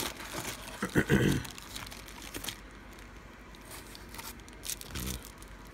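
Clear plastic zip-top bags crinkling and rustling as they are handled and pulled out of a cardboard box, loudest about a second in, then quieter scattered handling noises.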